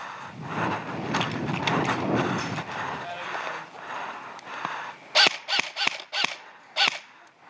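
Rustling noise, then five single shots from an airsoft rifle a little after halfway, fired in quick uneven succession. Each shot is a sharp snap with a brief pitched whine, and the first is the loudest.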